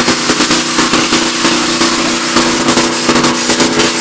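Two diesel Ford F-350 pickups, a Cummins-swapped 2001 and a 2006 Power Stroke, pulling against each other at full throttle in a truck tug of war: the engines run hard at a steady high pitch while the spinning rear tires smoke, with a dense, rapid crackling of pops throughout.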